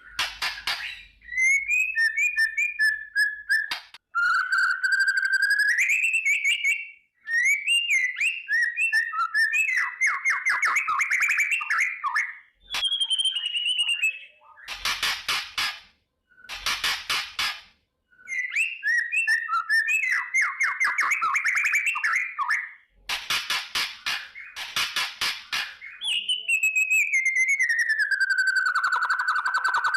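White-rumped shama (murai batu) singing: phrases of rapid crackling rattles ('kretekan') alternating with clear whistled notes, separated by short pauses, with a long falling whistle near the end.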